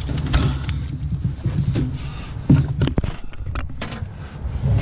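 Handling noise as a keep net full of carp is gathered up off a boat floor: scattered knocks and thumps, the loudest about two and a half seconds in, over a steady low rumble.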